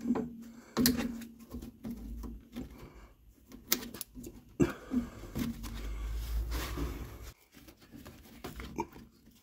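Cutting pliers snipping and clicking at the clip of a mangled rubber steering-rack boot. The rubber boot is then rubbed and twisted as it is worked off the rack, with a stretch of rubbing about five to seven seconds in.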